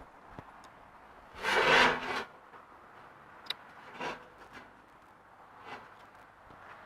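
Steel bumper parts being handled and set in place: one scraping rub lasting under a second about a second and a half in, then a few light knocks.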